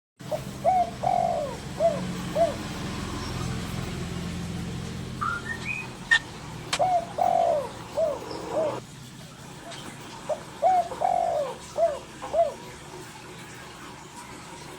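A dove cooing in a phrase of about five notes, one of them longer and trilled, repeated three times. A few brief higher chirps from another bird come in between.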